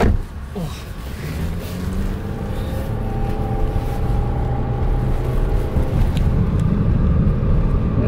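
A car door slams shut once, then the car pulls away, with the engine and road noise heard from inside the cabin rising steadily as it gathers speed.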